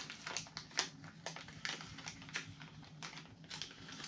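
Plastic lure packaging crinkling and rustling in quick, irregular crackles as packs of soft plastic fishing baits are handled, over a low steady hum.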